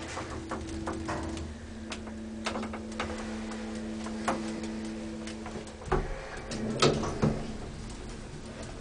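Old elevator car running with a steady hum and scattered ticks and clicks; the hum stops about six seconds in and a few clunks follow as the car comes to a stop.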